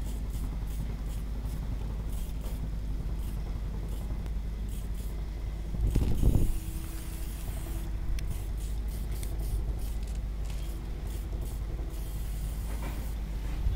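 Aerosol spray-paint can hissing in many short bursts as paint is sprayed onto a concrete block wall, with a louder bump and a longer spray about six seconds in. A steady low rumble runs underneath.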